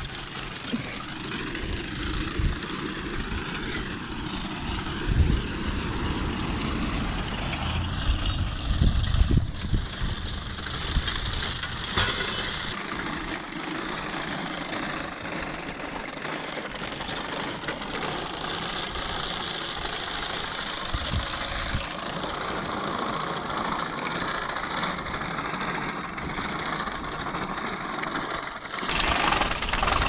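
Horse-drawn sickle-bar mower clattering steadily as its cutter bar runs through pasture grass, with low rumbles of wind on the microphone.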